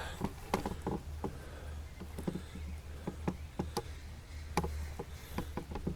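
Scattered light clicks and knocks from parts and tools being handled on a freshly reassembled lawn mower, over a steady low hum.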